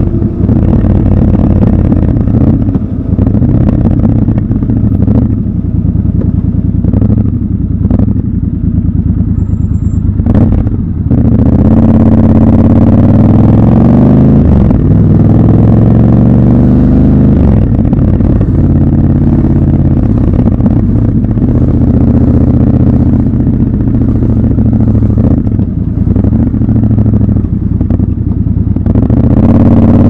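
Triumph Scrambler 1200 XC's parallel-twin engine running under way, its pitch rising and falling as the throttle is rolled on and off. A few sharp clicks come about eight to eleven seconds in, and the engine is louder from there on.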